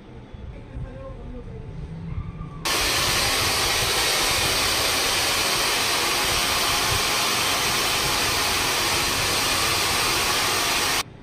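A hair dryer blowing a steady, loud stream of air, switched on about two and a half seconds in and off near the end, drying the freshly applied hair-system adhesive on the scalp.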